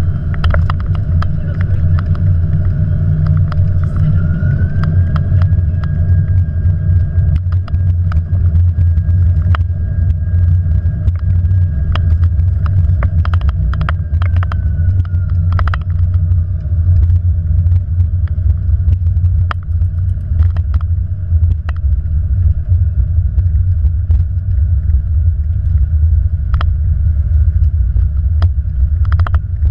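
Airbus A330-200 on its landing roll heard from the cockpit: a loud steady rumble from the runway and airframe with scattered knocks and rattles. An engine whine rises about four seconds in, holds, and winds down around the middle, typical of reverse thrust being applied and then cancelled as the aircraft slows.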